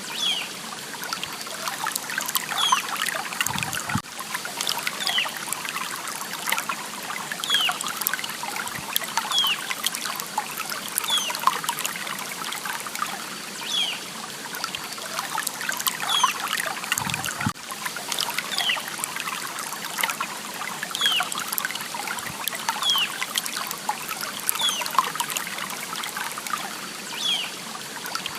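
Water trickling and dribbling in a steady stream, with many small drips and splashes and short high plinks every second or two.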